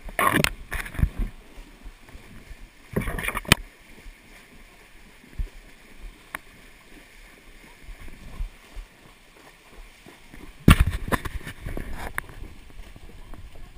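Icelandic horses wading through a shallow stream, their hooves splashing and churning the water in loud bursts near the start, around three seconds in, and again near the end, with quieter sloshing between.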